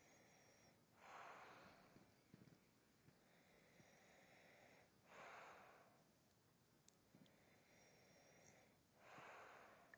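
Faint, slow breathing: three soft breaths about four seconds apart, each lasting about half a second.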